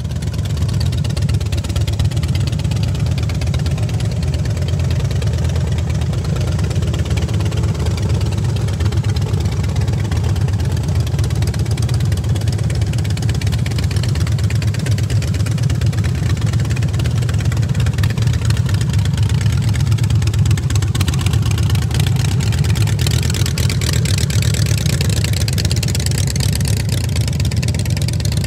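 Harley-Davidson Dyna Fat Bob V-twin motorcycle engine idling steadily, with a low, fast-pulsing exhaust note.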